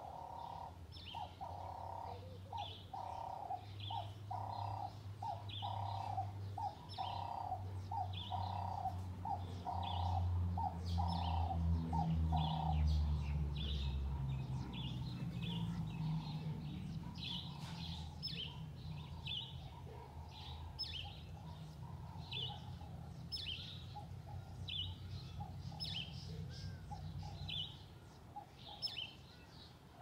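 Several songbirds chirping and singing, short high chirps repeating throughout, with a lower call repeated about twice a second through the first half. A low rumble swells under the birdsong, loudest near the middle, then fades.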